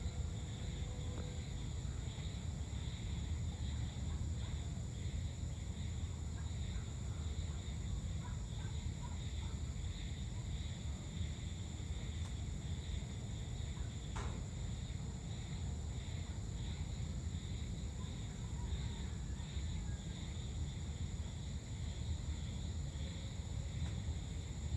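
Outdoor evening ambience: insects chirring steadily in high, even bands over a constant low rumble, with a single sharp click about halfway through.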